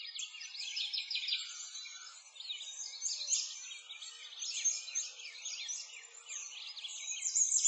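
A dense chorus of small songbirds chirping and twittering, many quick high calls overlapping, a little louder near the end.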